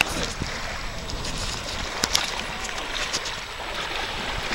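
Shallow water washing and lapping over a pebbly shoreline: a steady hiss of moving water, with a few light clicks.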